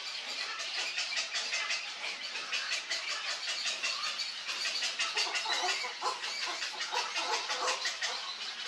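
Cattle egret colony: a fast, continuous ticking chatter of begging nestlings, with lower clucking calls joining in from about five seconds in.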